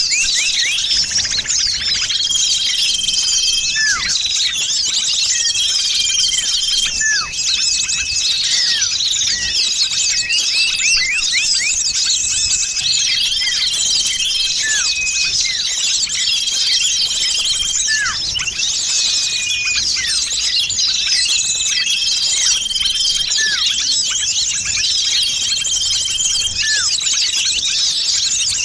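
Dense, noisy chorus of many small birds chirping and twittering without a break: a small-bird lure recording of the 'burcil ribut' kind. A flat whistled note and a short downward-swooping call recur every couple of seconds through the chatter.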